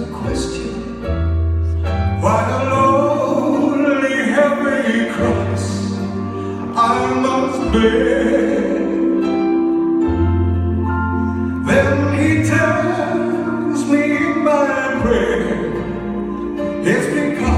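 A man singing into a hand-held microphone over instrumental accompaniment with long held bass notes.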